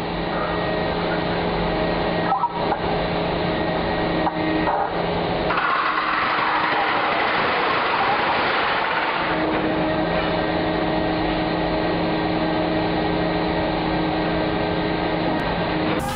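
Underground coal mining machinery running: a steady machine hum with several held tones, joined from about five to nine seconds in by a louder hissing rush.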